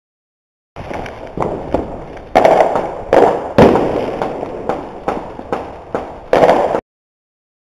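Fireworks and firecrackers going off across a town, about a dozen sharp bangs at uneven intervals over some six seconds, each followed by a rolling echo. The loudest bang falls about halfway through. The sound starts and stops abruptly.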